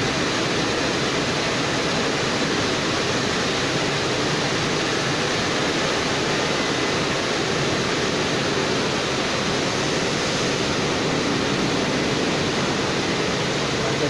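WashTec rollover car wash's dryer blowers running: a steady, loud rush of air.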